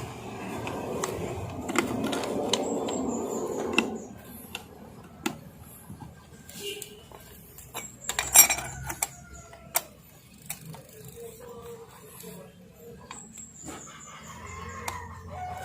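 Metal parts of a Butterfly sewing machine being handled and adjusted during reassembly: rubbing and scraping for about four seconds, then scattered small clicks and taps, with a sharper metallic clatter about eight seconds in.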